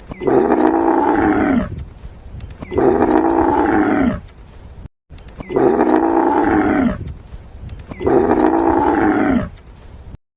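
Cow mooing: four long moos in two pairs, each call held steady and then dropping in pitch at its end.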